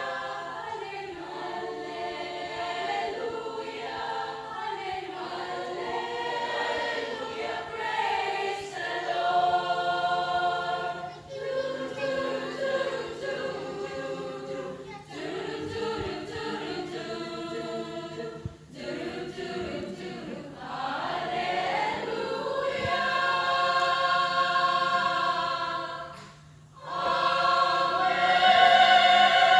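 Choir singing a Christmas carol, phrase after phrase, with a short break about 26 seconds in before the voices come back louder.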